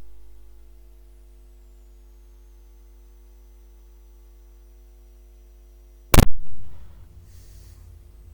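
Steady electrical mains hum, with one sharp knock about six seconds in.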